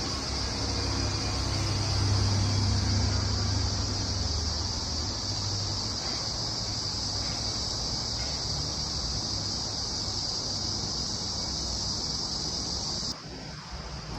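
Steady background room noise: a high, even hiss over a low hum, which changes abruptly about thirteen seconds in.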